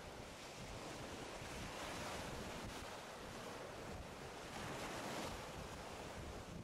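Wind buffeting the microphone over choppy water lapping and splashing, a steady rushing noise that swells a little about two seconds in and again around five seconds.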